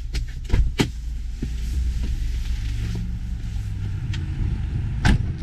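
Jeep Wrangler engine idling with a steady low rumble, with several knocks and clicks over it, the loudest about half a second in and again near the end.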